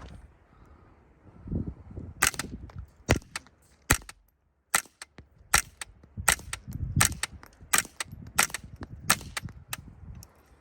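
Suppressed .22 LR AR rifle (Stag AR with a CMMG .22 conversion kit and a Little Spoon suppressor) firing subsonic Winchester Super Suppressed 45-grain rounds. About a dozen quiet shots come roughly one every three-quarters of a second, starting about two seconds in; with these subsonics the bolt cycling is louder than the round. Low wind rumble on the microphone underneath.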